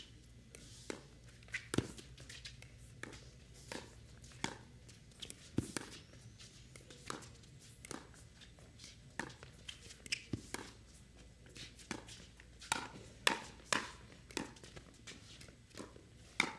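Pickleball paddles striking a hard plastic ball in a long back-and-forth doubles rally, with quick exchanges at the net: a run of sharp pops about one a second, coming quicker and louder near the end.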